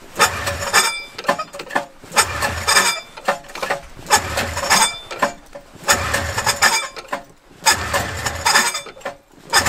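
Recoil pull-starter on a 1979 John Deere 340 Trailfire snowmobile yanked about five times, roughly every two seconds. Each pull spins the two-stroke engine over briefly without it catching.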